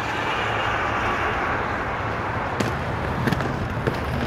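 Inline skate wheels rolling on smooth concrete, a steady hiss, with a few light clicks in the second half.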